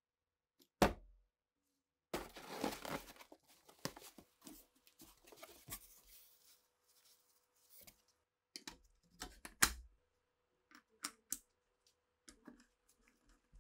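A single sharp knock about a second in, then a cardboard box being torn open and its flaps rustled. This is followed by a series of sharp clicks and clinks as the metal and wooden parts of an old SA-26 gun are handled in the box.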